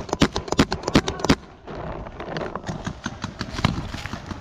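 Paintball markers firing a quick string of sharp shots, about five a second, that stops about a second and a half in; fainter, scattered shots follow.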